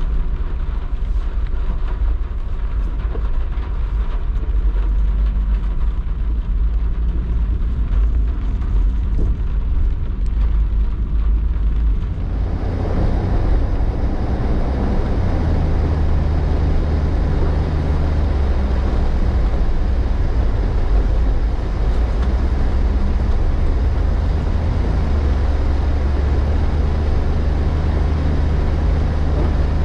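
Steady low engine rumble from a vehicle. About twelve seconds in, a louder, brighter rushing noise joins it and holds.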